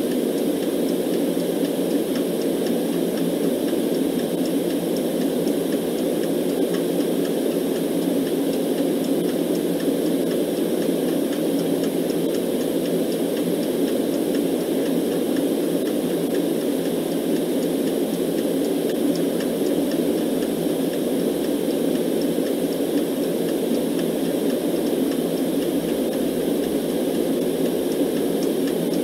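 Steady white noise, deep and even, most of its weight low in the middle range, with no change in level.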